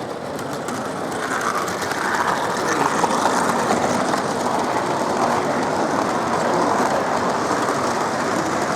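Model train running along layout track with a rapid clicking rattle of wheels on rails, getting louder about two seconds in.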